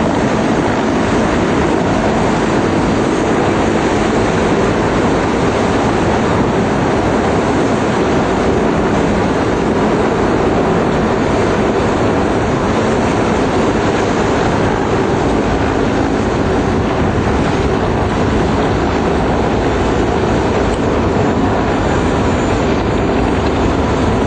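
Rescue helicopter hovering close by: a loud, steady rotor and engine rumble.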